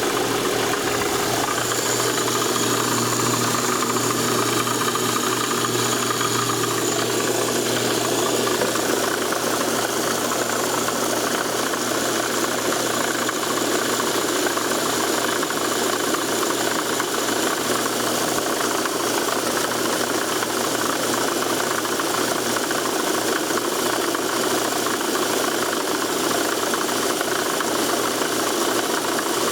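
Lada Priora's engine running steadily at idle, with an extraneous clattering noise coming from under the hood.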